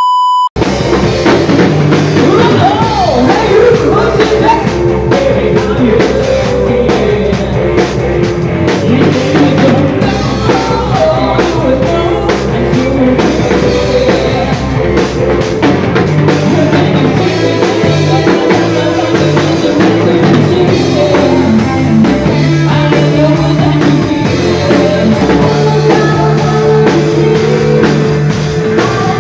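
A rock band playing live: drum kit with crashing cymbals, electric guitar and a singer. A short steady beep sounds at the very start.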